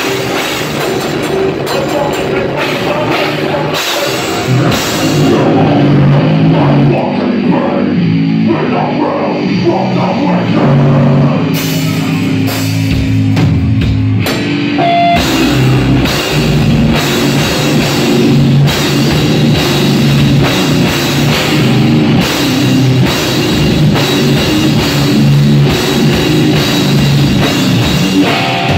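Heavy metal band playing live: distorted electric guitar over a drum kit, loud. About a quarter of the way in the cymbals and deep bass drop out, leaving a thinner guitar passage, and the full band comes back in about halfway through.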